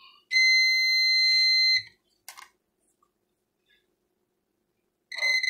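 DT9205A digital multimeter's continuity buzzer sounding a steady high beep for about a second and a half, then again near the end, as the probes bridge a 3.3 V inductor and a capacitor: a direct connection between the two points.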